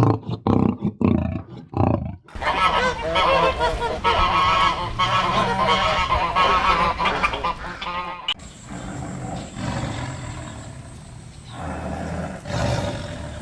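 A flock of waterfowl calling, many birds honking over one another in a dense chorus, with a few short loud calls before it. About 8 seconds in the chorus cuts off abruptly to a quieter scene with only occasional calls.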